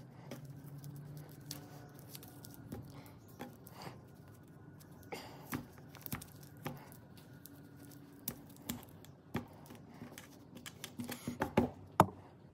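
Hands handling and pulling at the cotton rope of a rope rainbow wall hanging: soft rustling and scratching of rope fibres with scattered light taps, the sharpest tap near the end as the piece is set down on the table.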